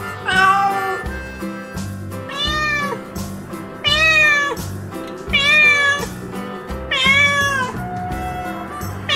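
Domestic cat meowing five times, about every second and a half, each meow rising then falling in pitch, over background music.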